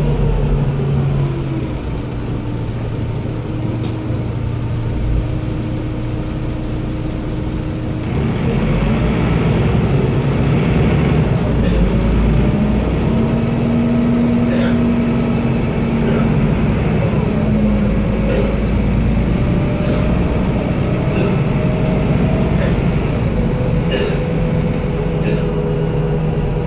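Van Hool NewA330 city bus's diesel engine and ZF automatic gearbox heard from inside the cabin, running quietly at first and then, about a third of the way in, pulling harder and louder, with its whine rising and falling as the bus gets under way. Sharp clicks or rattles several times.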